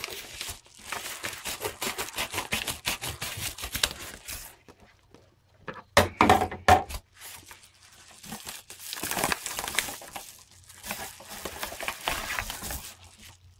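A mailed package being torn open by hand: tearing and crinkling of its wrapping in runs, with a short pause and a few loud rips about six seconds in.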